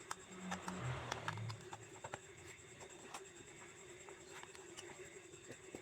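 Small plastic clicks and light scraping from handling and working on a wireless earbud set and its case, busiest in the first second and a half, over a steady faint hum.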